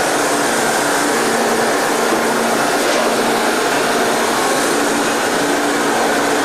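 Steady, loud rushing hum of boiler-room machinery, with faint low tones running through it.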